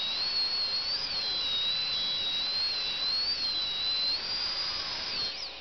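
High-speed veterinary dental drill whining at a high pitch that wavers up and down as it cuts, working on a dog's tooth whose caudal root is stuck during an extraction. The whine stops just before the end.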